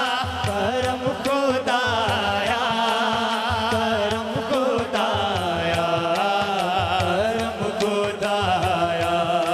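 Live hamd, an Urdu-Punjabi devotional song praising God: a male lead voice sings long, ornamented, wavering lines over a steady drum beat.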